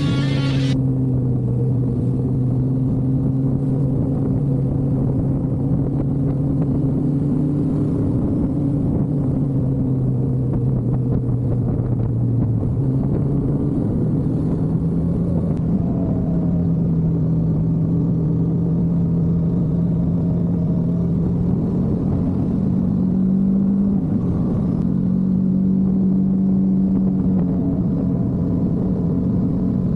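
Vehicle engine running at a steady cruise over road rumble. Its drone rises in pitch at two points, about halfway through and again near the end.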